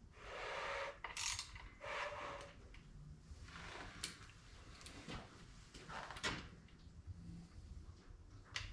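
Hand tools working the connecting-rod cap bolts of a 5.3 L LS V8 block: a series of short metallic rattles and sharp clicks from a ratchet and torque wrench being set and pulled on the bolts.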